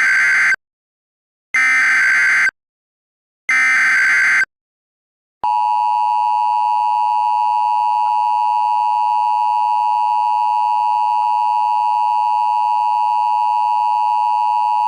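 Emergency Alert System tones. Three short, sharp data bursts of the SAME header about a second apart, then the long steady two-tone attention signal starting about five seconds in and cutting off abruptly about nine and a half seconds later, signalling that a warning message follows.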